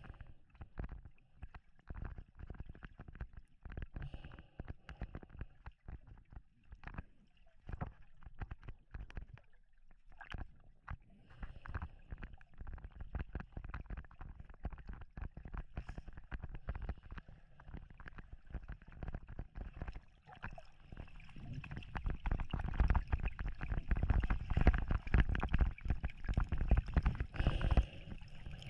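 Muffled sound of a camera held under water, with many irregular knocks and deep thuds from water moving against it and from handling. It gets clearly louder about three-quarters of the way through.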